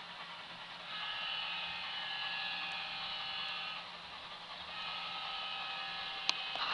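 HO scale model freight train rolling past on the track: a steady whine of several high tones that sets in about a second in, fades briefly near the middle and returns, over a low hum, with one sharp click near the end.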